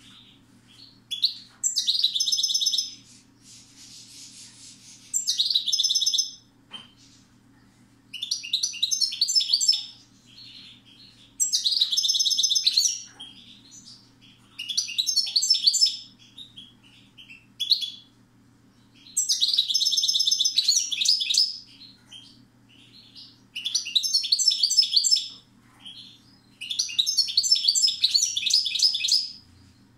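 A caged European goldfinch singing: fast, tinkling, twittering song phrases that last one to three seconds each, repeated with short pauses between them.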